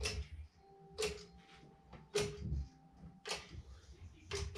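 Sharp knocks on the wood framing, five of them about a second apart, each with a brief ringing tone after it.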